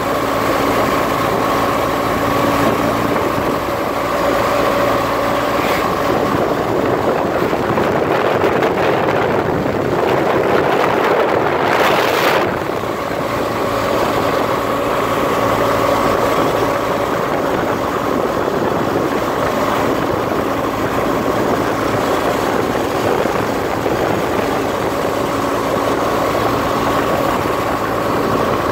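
BMW R 1200 GS Adventure's boxer-twin engine running steadily at highway speed under heavy wind rush across the windscreen and microphone. The engine hum fades under the wind for a few seconds midway, with a brief loud whoosh about twelve seconds in.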